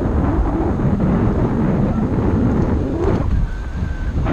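Wind buffeting the microphone of a GoPro on a moving bicycle: a loud, continuous, uneven low rumble. About three seconds in, a faint thin whistle-like tone holds for under a second.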